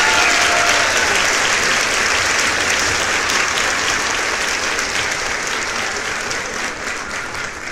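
Crowd applauding, a dense patter of many hands clapping that fades gradually.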